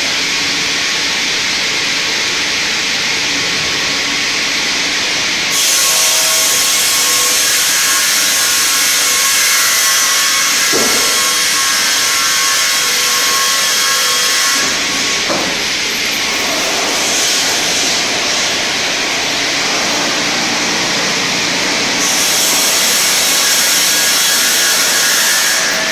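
StrojCAD D9 twin-blade circular sawmill running and sawing a spruce log as the carriage feeds it through the blades. The noise grows louder and hissier for about ten seconds starting about a quarter of the way in, and again near the end, while the blades are in the wood.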